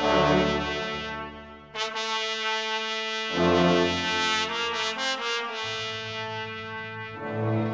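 Background music: held chords that change every two to three seconds, with a brief dip about a second and a half in.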